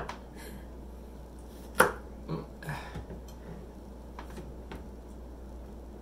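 Kitchen knives knocking on cutting boards while slicing ripe persimmons: a few scattered sharp clicks, the loudest about two seconds in, then several fainter ones.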